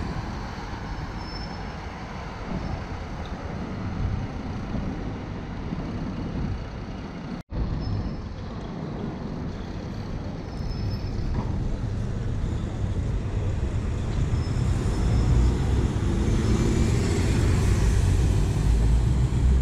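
City street traffic: buses and cars driving past with engines running and a steady low rumble. The sound cuts out for a moment about seven and a half seconds in, and the traffic grows louder near the end.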